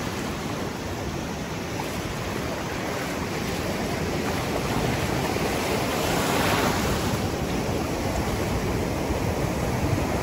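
Ocean surf breaking and washing over a shallow beach, with a louder wave surging in about two-thirds of the way through.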